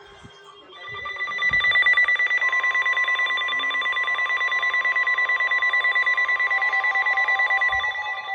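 Emergency alert tones for a flash flood warning: a rapidly pulsing electronic alarm starts just under a second in, a steady long warning tone joins about two seconds later, and a second beeping tone comes in near the end.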